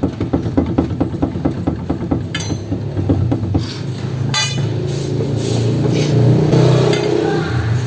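Rapid metallic clunking, about eight knocks a second for the first couple of seconds and then scattered clanks, from a Honda Civic's lower ball joint as the suspension arm is levered with a pipe. The knocking and play are the sign of a worn lower ball joint. A steady low hum runs underneath.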